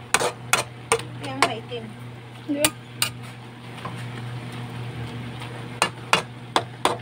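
Metal spatula knocking and scraping against a wok while water spinach and fried tofu are stir-fried, in clusters of sharp clicks near the start, around three seconds in and near the end. A steady low hum runs underneath.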